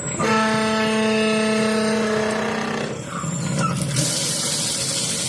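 Kitchen mixer tap vibrating with a loud, steady hum for about three seconds, which then stops and gives way to the hiss of running water.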